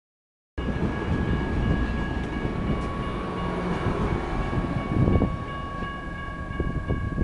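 Bilevel passenger coaches rolling through a grade crossing, their wheels rumbling on the rails, with a louder swell about five seconds in. A General Signals electronic crossing bell sounds steadily over the train. The sound cuts out entirely for the first half second.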